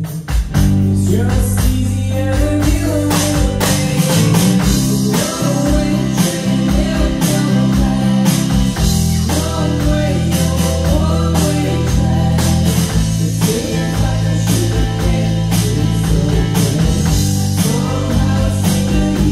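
Live band playing a rock song: electric guitars, bass notes and drums with cymbals, with a voice singing the melody over them.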